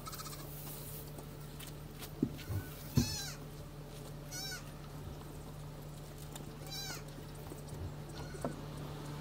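A farm animal bleating: three short, quavering calls spread over a few seconds, over a steady low hum. Two knocks come just before and with the first call.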